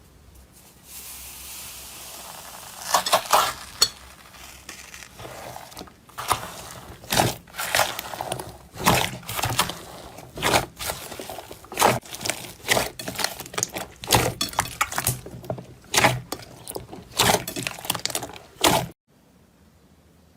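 Slime being pressed and crushed by hand, giving sharp, irregular crunching crackles. A soft hiss comes first, and the crackling begins about three seconds in and stops shortly before the end.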